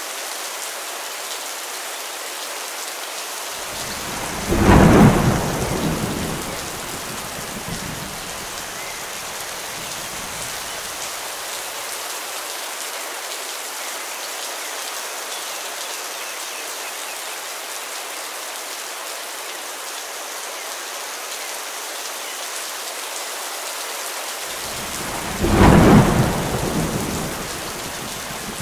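Steady rain falling, with two loud claps of thunder, one about five seconds in and one near the end, each rolling off over a couple of seconds.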